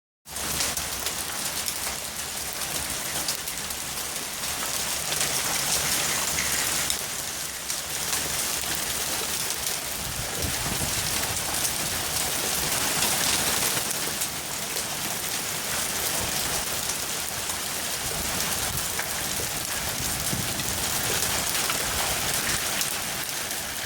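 Hailstones falling and striking hard surfaces: a dense, steady patter of countless small impacts.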